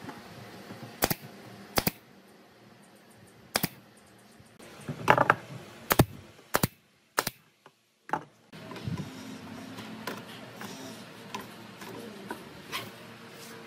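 Sharp, irregular wooden knocks and clicks as the parts of a wooden folding chair frame are handled and fitted, about a dozen taps with the loudest cluster about five seconds in.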